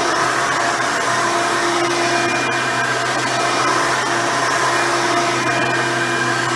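Hoover Elite 350 upright vacuum running steadily on carpet, its 7-amp motor and fan giving a constant whine over a rushing hiss.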